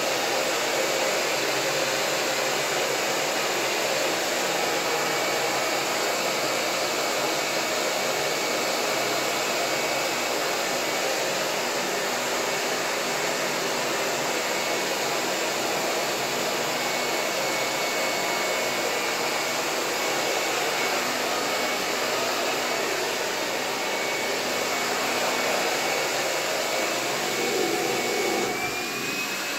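Handheld hair dryer running steadily, blowing warm air through the hose of a soft bonnet hooded dryer attachment: an even, continuous whir with a faint high whine.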